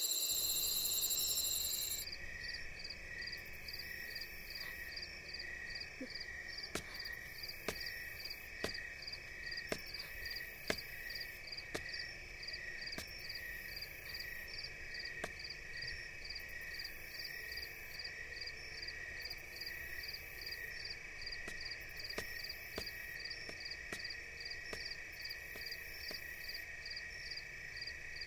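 Night ambience of frogs and insects calling in steady, evenly repeating pulses, with faint scattered clicks. A brief chiming sound fades out about two seconds in.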